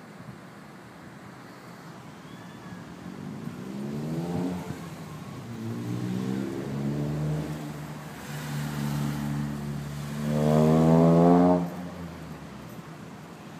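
A motor vehicle's engine accelerating hard along the street, its pitch climbing, dropping back and climbing again several times as it shifts up through the gears. It is loudest in the last long climb, then drops away suddenly.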